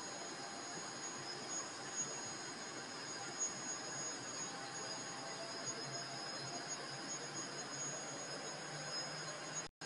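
Steady hum and hiss of factory machinery on a sanitary napkin and diaper production line, with two high, steady whines over it. The sound cuts out for an instant near the end.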